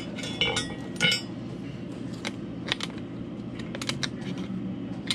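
Metal tools clinking and tapping on the chrome roller-skate plate and truck hardware while the kingpin is readjusted. There are two ringing clinks about a second in, the louder one second, then a few sharper, scattered clicks.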